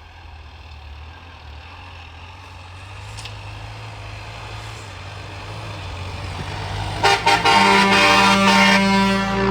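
A Mitsubishi L200 pickup's engine climbs steadily in revs under load in deep snow, then is revved hard and loud for the last couple of seconds.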